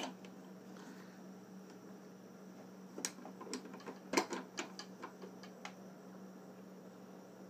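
Light metal clicks and ticks of a small flat wrench on the arbor nut as a diamond blade is tightened onto a wet tile saw's arbor: one click at the start, then a scattered run of clicks about three seconds in.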